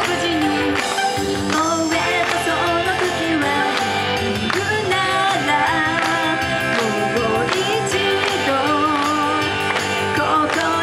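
Japanese idol pop song performed live: a girl's voice singing into a handheld microphone over a recorded backing track, amplified through a PA.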